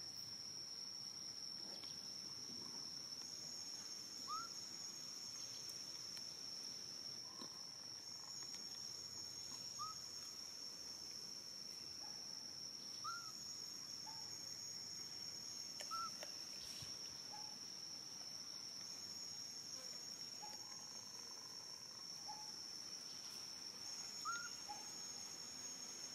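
Steady high-pitched insect drone, with short rising chirps every few seconds, the loudest about four seconds in, around ten, thirteen and sixteen seconds in, and near the end.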